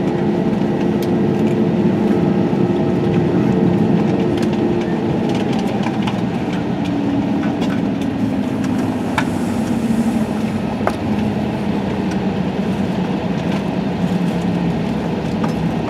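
Airbus A320-232 cabin noise from a window seat behind the wing: its IAE V2500 engines give a steady low hum that slowly drops in pitch through the second half as they wind down with the aircraft coming to a stop at the gate. A few faint clicks sit on top.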